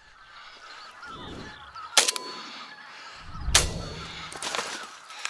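Geese honking overhead, with two loud shotgun shots about a second and a half apart, the second carrying a deep thump.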